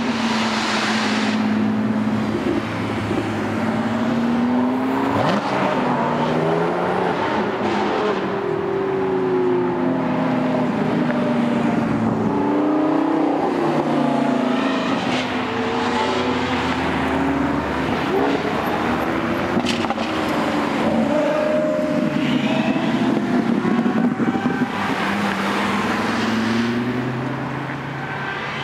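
Car engines accelerating as several cars pull away and pass one after another. The engine notes rise and fall repeatedly through the gears and overlap one another.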